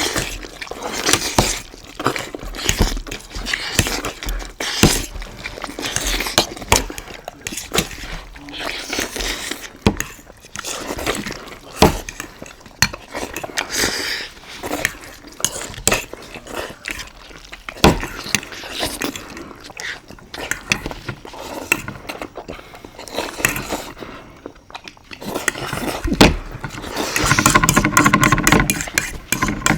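People eating Maggi instant noodles fast, with cutlery clinking and knocking against plates or bowls again and again.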